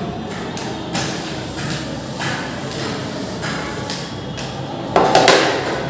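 Chalkboard being wiped with an eraser: a scrubbing, rubbing noise with repeated knocks against the board, a louder knock about five seconds in.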